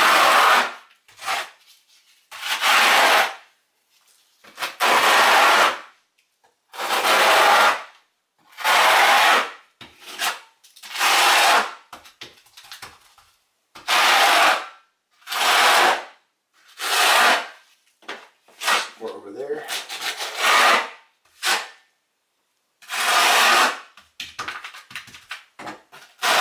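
Notched trowel scraping thinset tile mortar across a shower wall as it combs ridges into it: about a dozen scraping strokes, one every couple of seconds.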